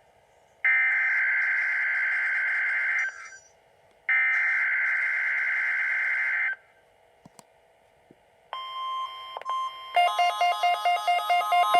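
NOAA Weather Radio weekly-test alert signal: two buzzy digital EAS/SAME header data bursts of about two and a half seconds each, separated by a second's silence. Near the end a steady electronic tone starts and turns into rapid beeping, about four pulses a second.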